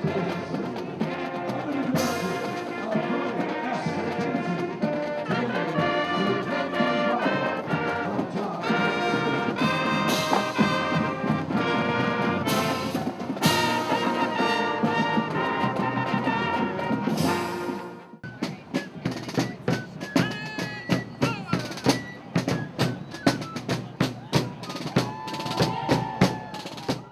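Marching band playing, with brass (trumpets and trombones) over drums. About two-thirds of the way through it changes abruptly to a sparser passage with sharp, regular drum beats.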